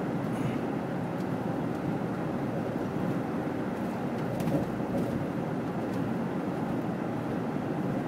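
Steady engine and road noise of a vehicle driving at highway speed, heard from inside the cabin, with a few faint ticks.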